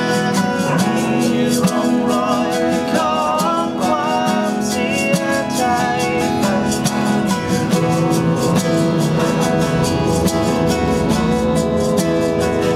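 Acoustic band playing a slow pop ballad: two acoustic guitars strummed and picked in a steady rhythm, with a male voice singing the melody.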